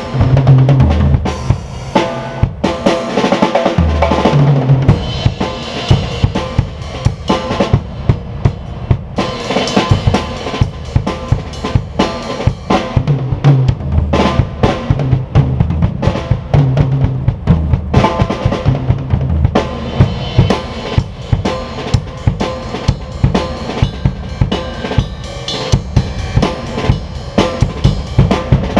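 Drum kit being played continuously: bass drum, snare and cymbal strikes, with runs of lower-pitched drum hits.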